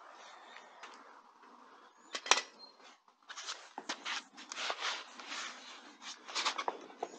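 Handling noise as an alloy wheel with an off-road tyre is lifted onto a van's hub: a sharp knock about two seconds in, then a run of short scuffs and rustles.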